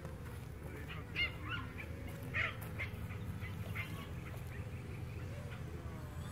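Steady motor drone from a swarm of quadcopters flying nearby, with a held whine under it. Over it come several short animal calls, the two loudest about a second and two and a half seconds in.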